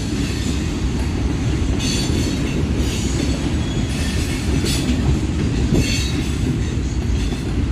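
Norfolk Southern manifest freight train's cars rolling past at close range: a steady, loud rumble with clickety-clack from the wheels, and a few brief higher-pitched screeches.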